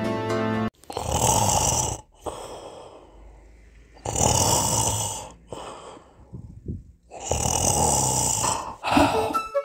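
Snoring: three long, loud breaths about three seconds apart, each followed by a quieter breath that fades away. Music stops just before the first and comes back at the very end.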